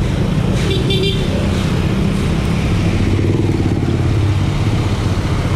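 A vehicle engine running steadily on the move, with road noise. A brief high-pitched tone sounds about a second in.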